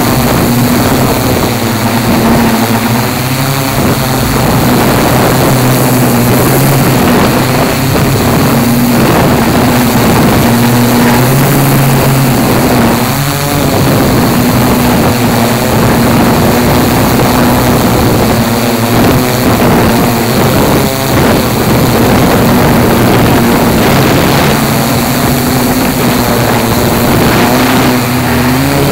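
A Tarot 680Pro hexacopter's electric motors and propellers humming steadily in flight, heard from the camera on board, the pitch wavering a little as the motors adjust. Gusty wind rushes over the microphone throughout.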